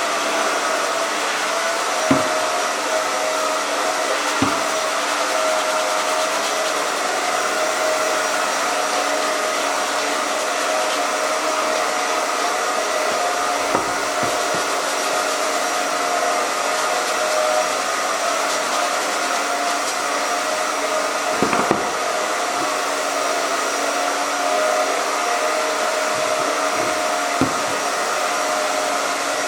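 Hair dryer running steadily: a constant motor whine over rushing air. A few light knocks come through it, about five in all.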